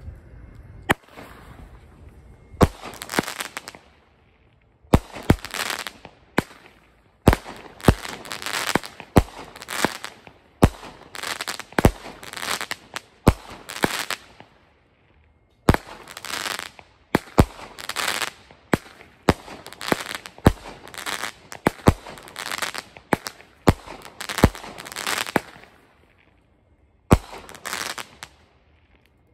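Brothers "Daffodil" 16-shot, 200-gram firework cake firing. It gives a string of sharp launch thumps, each followed by a burst with a crackling tail, about one to two a second. There are short pauses about four, fifteen and twenty-six seconds in.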